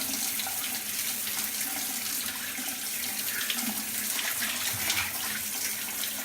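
Shower running: a steady spray of water.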